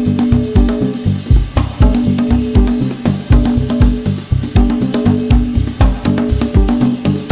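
Background music with a steady driving drum beat and bass.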